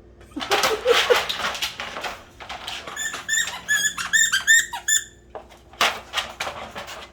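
A puppy playing: scuffling and rustling, with a quick run of about ten short, high squeaks in the middle.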